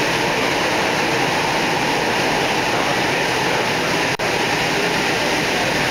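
Light rail train running at speed, heard from inside the car as a steady rushing noise, which drops out for an instant about four seconds in.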